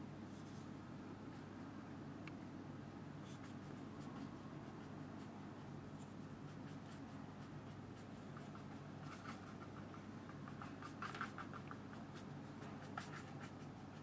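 Flat watercolour brush scraping and dabbing on textured watercolour paper: faint, light scratchy strokes, thickening into a quick run of small scrapes about two-thirds of the way through, over a low steady room hum.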